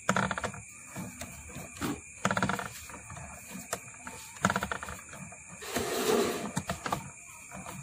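Coil winder's gear drive whirring in uneven bursts as enamelled copper wire is wound onto a transformer bobbin.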